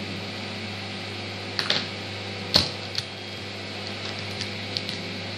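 A felt-tip marker and its plastic cap being handled: a few short, sharp plastic clicks and taps, the loudest about two and a half seconds in, over a steady low hum.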